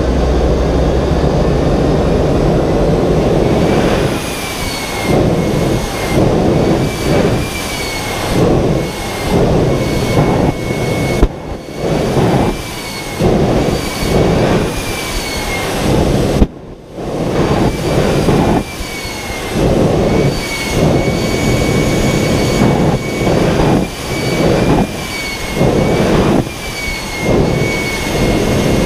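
Jet turbine engine of a jet-powered drag truck running with a loud roar and a high, wavering turbine whine. From about four seconds in, the roar comes in rapid surges with short dips between them, roughly one or two a second, with one brief sudden drop partway through.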